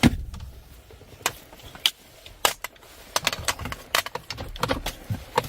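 Irregular light clicks and taps of a Phillips screwdriver and plastic dash trim being handled, with a knock at the start.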